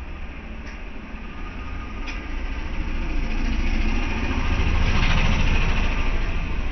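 A motor vehicle passing, its engine growing louder to a peak about five seconds in, then easing off, with faint clicks about every second and a half.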